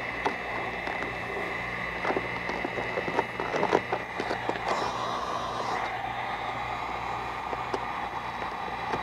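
3M 1080 gloss orange vinyl wrap film crackling and rubbing in short, irregular bursts as it is spread and pressed by hand around a car's side mirror, over a steady background hum.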